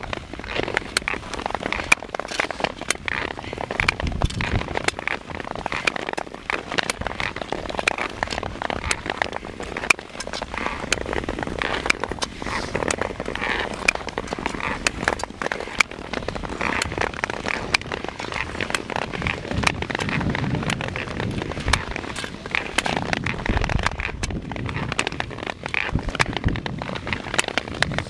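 Speed skates scraping and clattering over rough natural river ice: a dense run of irregular clicks and crackles over a steady rush of noise.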